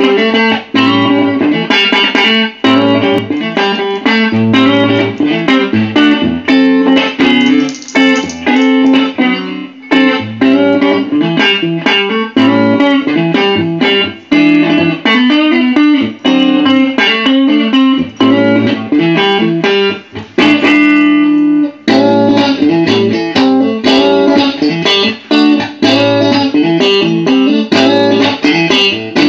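Burn Marquee Club electric guitar being played: quick runs of picked single notes and chords in a continuous flow, with one chord left ringing for about a second some twenty seconds in before the fast playing picks up again.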